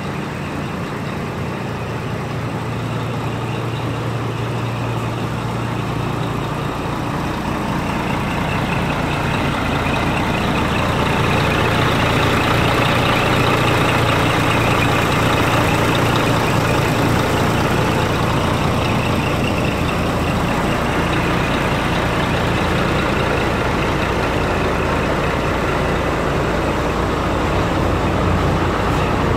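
Scania R420 truck's six-cylinder diesel engine idling steadily, getting louder from about ten seconds in, up close to the engine bay.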